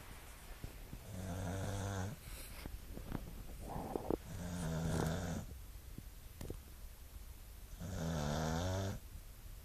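A Staffordshire bull terrier snoring in its sleep: three low-pitched snores, each about a second long and roughly three seconds apart, with small clicks between them.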